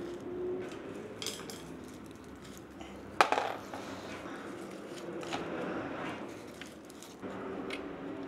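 Metal motorcycle carburetor parts being handled and set down in a plastic parts tray: light clicks and knocks, with one sharp clack about three seconds in.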